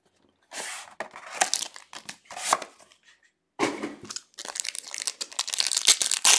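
Paper packaging of a trading card box tearing and rustling in three short bursts, then, from about three and a half seconds in, a foil card pack crinkling steadily and tearing open, growing louder toward the end.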